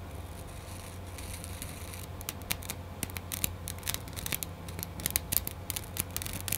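Digital 8 videotape peeling apart on its reel with a sticky crackling and crunching, the tape layers stuck down on top of each other. The mould growing in the cassette is most probably the cause. A faint hiss gives way about two seconds in to rapid, irregular crackles.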